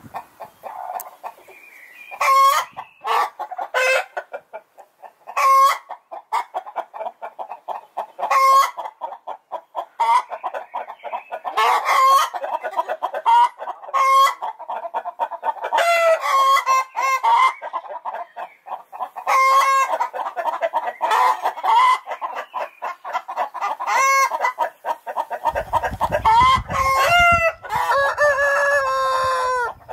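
A flock of chickens clucking steadily, with loud cackling calls breaking out every few seconds. Near the end a low rumble comes in, along with longer drawn-out calls that could be a rooster crowing.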